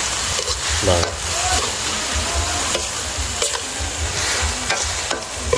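Red ant eggs stir-frying in an oiled metal wok, sizzling steadily while a metal spatula scrapes and knocks against the pan a few times.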